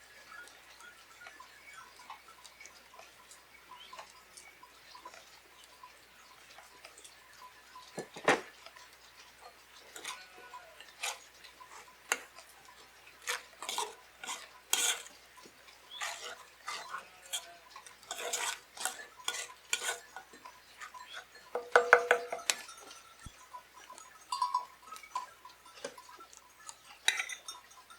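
Scattered clinks and knocks of cookware and utensils being handled, sparse at first and busier through the second half, loudest about three-quarters of the way in.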